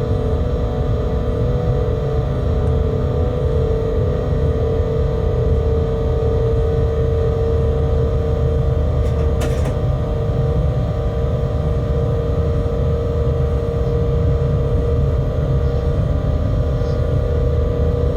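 Freight locomotive running, heard from inside its cab: a steady low rumble with a steady hum running over it, and one brief click about nine seconds in.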